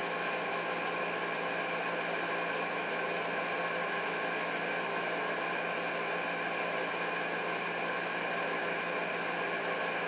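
A steady machine hum with several held tones over an even hiss, unchanging in level throughout.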